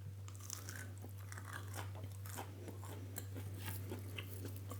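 Close-up chewing of a crunchy breadcrumb-coated vegan southern fried strip: irregular, faint crunches as the thick coating is bitten and chewed.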